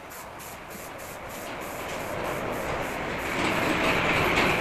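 Aerosol spray can hissing as paint is sprayed onto a scooter's body panel, growing louder over the last couple of seconds.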